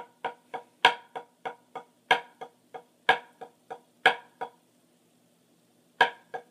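Drumsticks playing an accent-tap exercise on a practice pad: a loud accented stroke about once a second with softer taps between. The playing stops about four and a half seconds in and starts again near the end.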